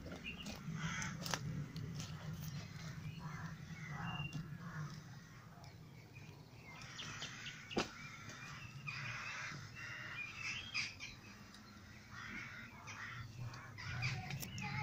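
Crows cawing repeatedly, in short patches of calls, with occasional twigs snapping underfoot; the clearest snap comes a little past halfway.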